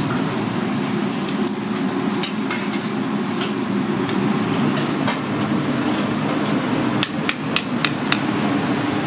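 A steady low rumble, with a quick run of several sharp knocks about seven seconds in.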